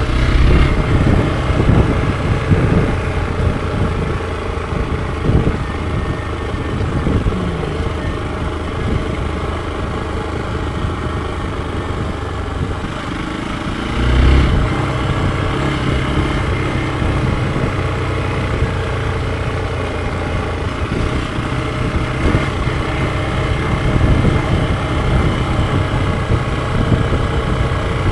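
Hero XPulse 200 4V single-cylinder motorcycle engine running steadily on the move. The engine note swells briefly about halfway through as the throttle opens.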